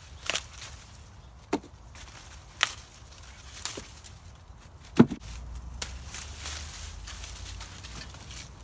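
Dry, field-dried popcorn plants being harvested by hand: five sharp cracks about a second apart, the loudest about five seconds in, over a steady rustle of dry husks and leaves.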